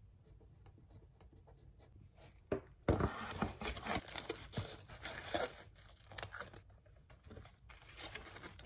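Faint pen scratching on a card at first. About three seconds in, loud crinkling and rustling of kraft paper and cardboard begins as cards are packed into a cardboard mailer box. Near the end the rustling picks up again as shredded paper filler is handled.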